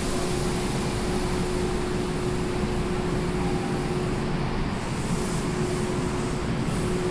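Kintetsu "Raku" charter train running after departure, a steady rumble of wheels on rail with a constant motor hum.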